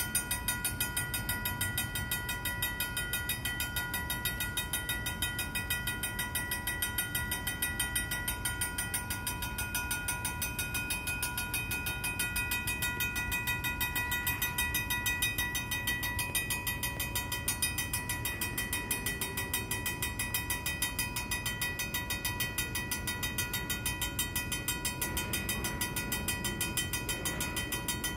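Vintage mechanical railroad crossing bell ringing fast and steadily, its strokes evenly spaced, over the low rumble of freight cars at the crossing.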